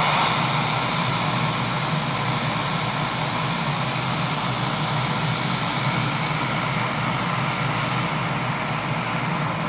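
CB radio receiver putting out steady static hiss with an open squelch and no station coming through: the band conditions have faded out.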